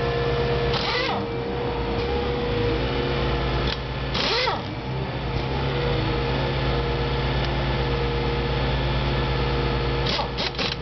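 Pneumatic impact wrench on a truck's wheel nuts, firing in a short burst about a second in, a longer one about four seconds in, and a few quick blips near the end. Underneath, the steady hum of the Toyota Hilux 3.0 D-4D diesel idling to drive its on-board air compressor.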